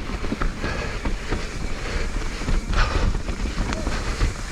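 Mountain bike running down a dirt trail: wind buffeting the helmet camera's microphone over a low rumble from the tyres, with scattered clicks and rattles.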